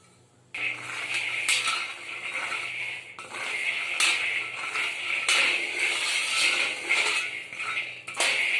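Metal spatula stirring and scraping raw peanuts around a dry wok with no oil, the nuts rattling and clattering against the pan. It starts about half a second in and continues with many small clicks.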